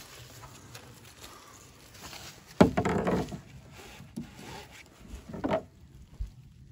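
Jump-starter alligator clamps being handled and clipped onto a car battery's terminals: a rough rubbing scrape about two and a half seconds in, a shorter one near the end, and small clicks between.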